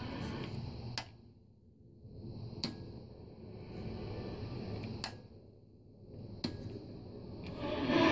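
1967–1972 GMC Delco AM radio with its broadcast gone, leaving only a faint low hum and hiss. Four sharp clicks sound a second or two apart, and the hiss swells and fades between them.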